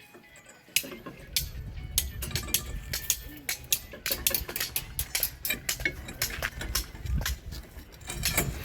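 Rapid, irregular metallic clinks and knocks of hand tools on steel reinforcing bars, with a low rumble that starts about a second in.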